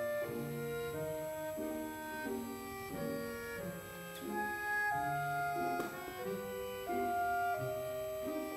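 Instrumental background music: a slow melody of held notes that change about every half second to second.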